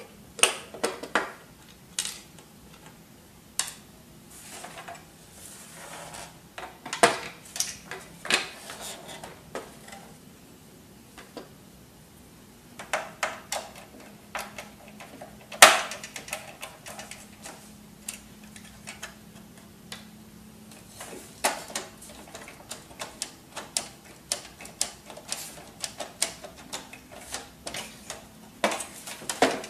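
Irregular clicks, taps and clatter of a screwdriver against the plastic chassis and parts of an HP Deskjet F2410 all-in-one printer being taken apart. A single sharp knock about halfway through is the loudest, and the clicks come thick and fast near the end.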